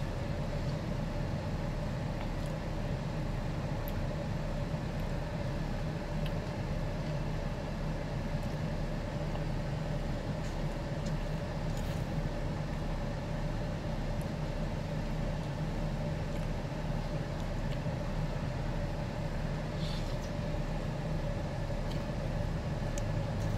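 Car engine idling, a steady hum heard from inside the parked car's cabin, with a few faint clicks.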